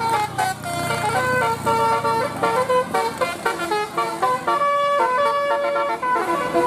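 Basuri telolet bus horn, a multi-tone air horn, playing a quick melody of short stepped notes that change pitch every fraction of a second.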